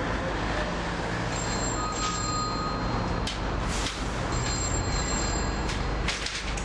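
Street payphone ringing twice, each ring lasting about a second and a half, over steady city traffic.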